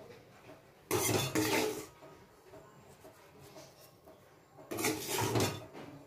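Metal ladle scraping and clinking against an aluminium pot while stirring fried rice, in two short bouts: one about a second in and one near the end.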